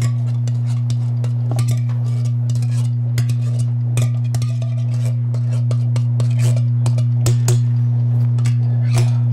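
Steady loud electrical hum, with a spoon clinking and scraping against a tin can as corn is scooped out of it into a steel pot, a scattering of short clicks.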